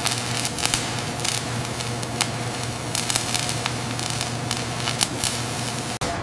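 Welding arc crackling and hissing, with sharp pops scattered through it over a steady low hum. It cuts off abruptly near the end.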